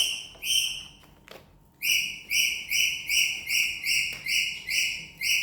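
Rapid, evenly repeated high chirps, about two to three a second, like a small bird calling. They break off for about a second near the start, during which a single knock is heard.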